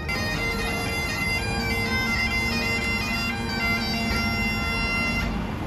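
Great Highland bagpipe playing a melody on the chanter over its steady drones, breaking off abruptly about five seconds in.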